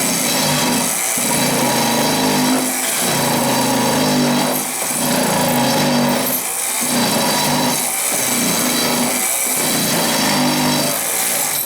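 Handheld electric vibrator (Bosch, 110 V) running, buzzing steadily as it compacts dry refractory furnace lining, its tone dipping briefly every second or two.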